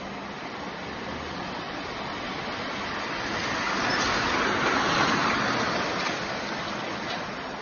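A road vehicle passing through the intersection: its tyre and engine noise swells to a peak about five seconds in, then fades, over steady traffic noise.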